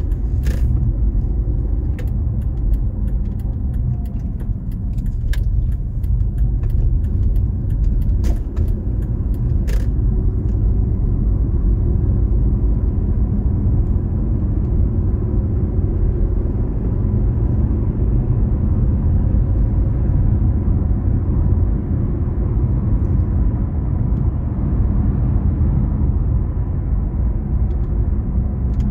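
Steady low rumble of a moving vehicle, with light clicks and rattles during the first ten seconds or so.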